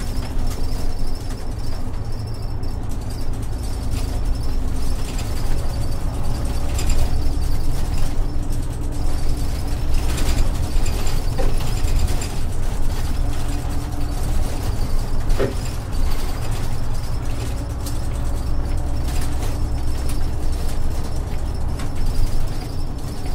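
Cabin sound of an Isuzu Erga city bus under way: its 6HK1-TCC inline-six diesel drones steadily through the Allison five-speed torque-converter automatic, with the interior fittings clicking and rattling over the road.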